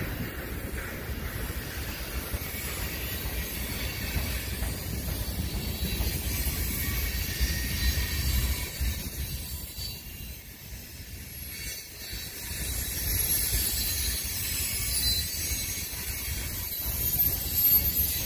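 A freight train's cars rolling past: the steady low rumble and rhythmic clatter of steel wheels on the rails, dipping briefly in the middle and then building again.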